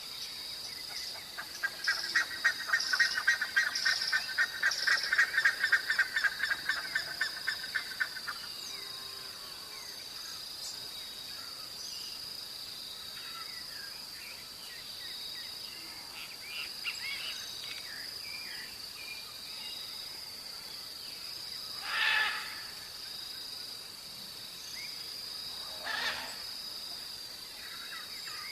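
Birds at dawn over a steady high insect drone. A fast, loud run of repeated bird notes lasts for the first several seconds, then scattered chirps follow, with two short harsh calls near the end.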